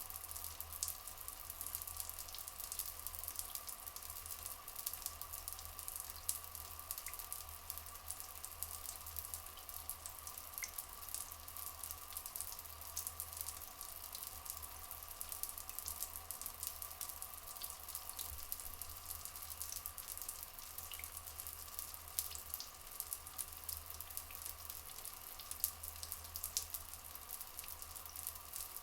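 Rainforest ambience of running, trickling water, a dense steady crackle of fine drips and splashes, over two steady humming tones. A few faint short chirps stand out now and then.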